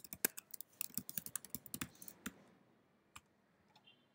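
Typing on a computer keyboard: a quick run of keystrokes for about two seconds, then a pause broken by a couple of single clicks.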